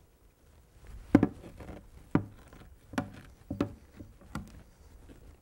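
Dull, repeated thumps of a metal tamper pressing salted shredded cabbage down in a large plastic container, about five strokes starting about a second in. The cabbage is being packed to draw out its juices for sauerkraut.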